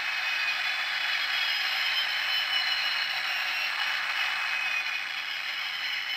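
The Space: 1999 Eagle Transporter's landing engine sound effect, played from a model-kit sound board through a small speaker: a steady, thin engine hiss with faint whistling tones and no bass, easing slightly near the end.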